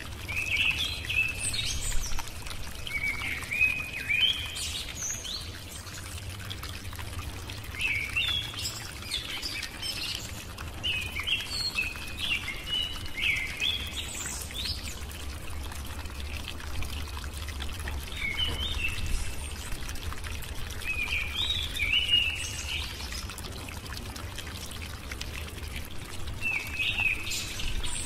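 Birds singing in short twittering phrases every few seconds over a steady rush of running water.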